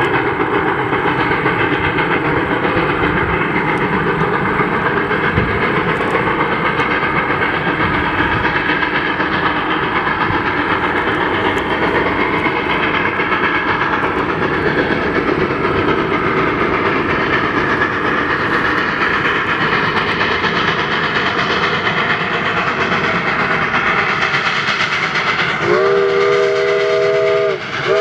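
Steam locomotive 2-8-0 #734 and its freight train running by, with a steady loud din of exhaust and wheels on rail. Near the end its steam whistle sounds a chord of several tones, stops briefly, then blows again.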